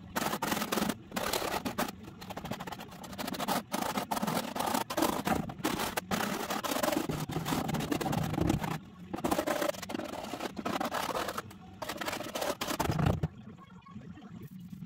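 Hand paint scraper with a carbide blade scraping scaly rust off a van's steel floor pan in rapid, irregular hard strokes, knocking the loose rust free. The scraping stops near the end.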